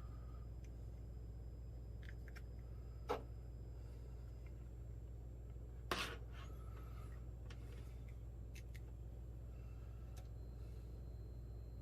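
Two sharp clicks about three seconds apart and a few fainter ticks over a steady low hum: alligator clips and leads being hooked onto battery cells.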